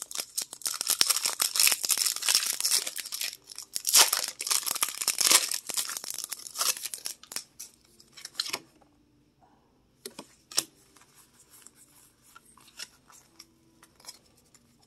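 A Pokémon booster pack's foil wrapper is torn open and crinkled by hand in a dense, crackling rustle through the first seven or eight seconds. After a short pause, the cards give quieter taps and rustles as they are handled.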